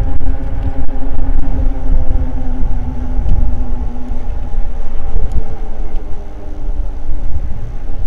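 Wind buffeting the microphone of an e-bike rolling along a paved trail, with a steady hum from the electric motor and tyres. The strongest part of the hum fades about four seconds in as the bike slows.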